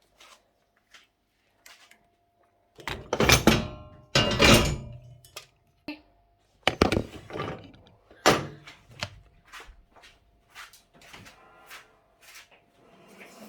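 Plastic thunks and knocks from handling a washing machine's detergent drawer: light clicks, then two loud knocks about three and four and a half seconds in, and two more a few seconds later, followed by smaller clicks.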